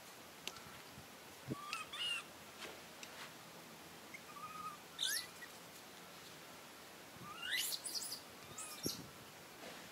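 Short, high-pitched chirping calls, several sweeping sharply upward in pitch: one about 2 s in, one about 5 s in, and a cluster of several around 7.5 to 8 s, the loudest.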